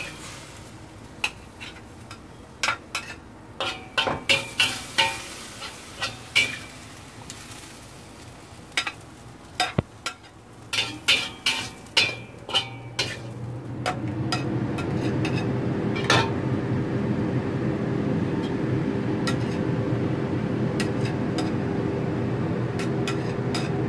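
Metal spatula scraping and knocking against a wok and a ceramic bowl as a stir-fry of chicken breast and chives is dished out, in a run of sharp scrapes and clinks. About halfway through a steady low hum comes on and continues under the scraping.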